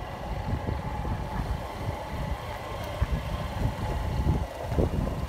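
Wind buffeting the microphone over the low, uneven rumble of a vehicle driving along a rough dirt track.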